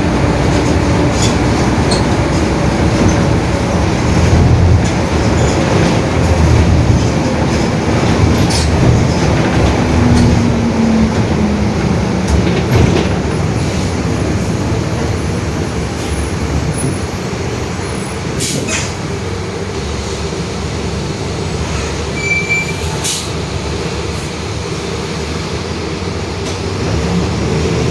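Mercedes-Benz OF-1721 city bus under way: engine and driveline rumble with a droning whine from the differential. The whine falls in pitch about ten seconds in as the bus slows, and the running gets quieter after that. There are occasional sharp clicks and rattles.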